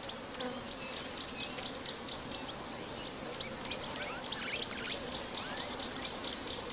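Insects buzzing in the bush: a steady high drone that pulses on and off, with small ticks and a few short chirps over it.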